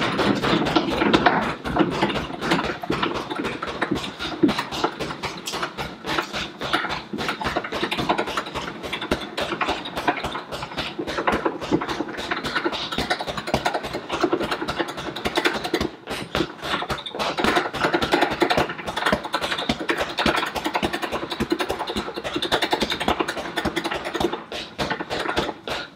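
A rapid, steady run of straight punches landing on an Everlast heavy bag, one blow after another with no pause.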